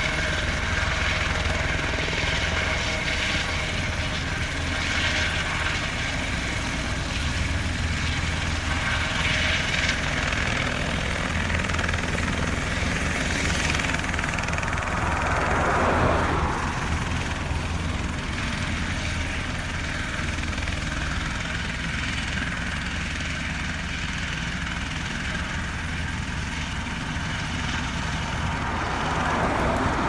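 Helicopter's rotor and engine running steadily as it settles onto the ground and idles there. About halfway through, a pickup truck passes close by, its noise swelling and fading; this is the loudest moment.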